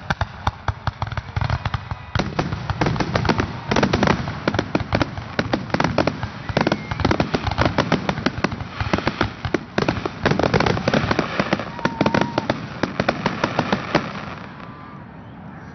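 Aerial fireworks display: a dense barrage of shell bursts, many bangs in quick succession, dying away near the end.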